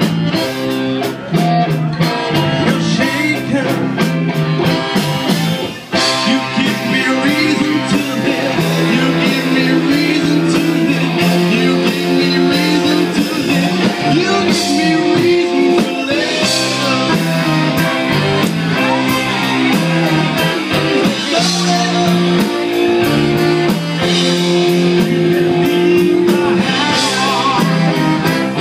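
Live rock band playing: electric guitar and drums keeping a steady beat, with a singer on a microphone.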